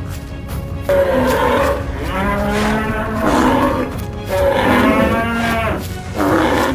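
Cattle mooing: several long, drawn-out moos one after another, starting about a second in, as a cartoon sound effect over a low background score.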